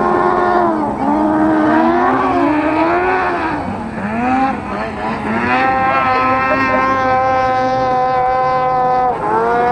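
Off-road racing buggy engines revving up and down through the bends and jumps. From about halfway one engine is held at steady high revs, dipping briefly near the end before climbing again.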